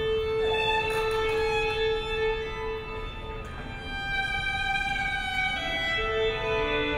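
Slow violin music of long, held notes, two or three sounding at once, with a low note sustained through the first three seconds before the notes shift.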